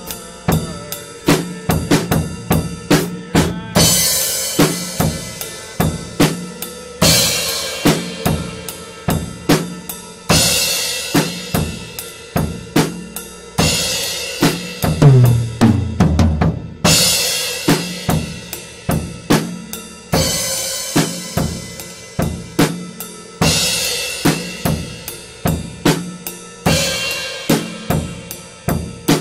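Live band playing an instrumental passage: a Ludwig drum kit keeps a steady beat, with a cymbal crash about every three seconds, over sustained electric guitar.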